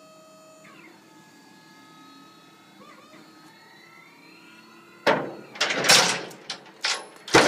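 Maxon 5500 lb railgate's hydraulic power unit whining steadily as the platform lifts, its pitch shifting and then rising slightly as the platform tips up to fold. From about five seconds in, loud clanks and chain rattles of the steel platform folding up against the trailer, the loudest knock near the end.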